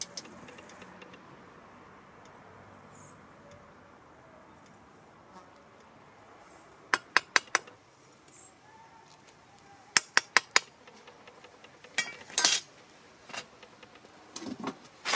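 A steel skimming rod clinking against the slab as slag skimmed off a crucible of molten metal is knocked off it: several quick groups of three or four sharp taps, a few seconds apart.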